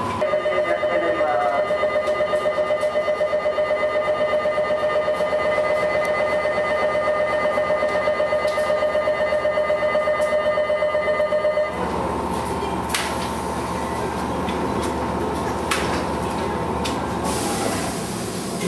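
An electric departure bell rings steadily on one pitch with a fast, even ripple for about twelve seconds, then stops abruptly. A steady hum with a couple of sharp knocks follows, and near the end comes a burst of air hiss, as the pneumatic doors of a Chichibu Railway 1000 series electric train close for departure.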